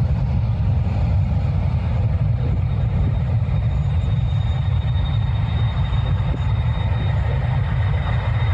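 McDonnell Douglas MD-11 freighter's three jet engines at taxi power as the aircraft turns: a steady low rumble with a faint, thin high whine.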